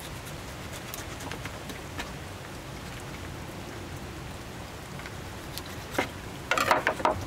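Steady rain with scattered drips. Near the end comes a brief, louder cluster of noisy knocks lasting under a second.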